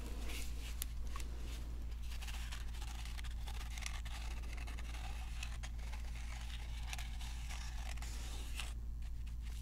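Faint handling sounds: light scratching with scattered small clicks, over a steady low hum.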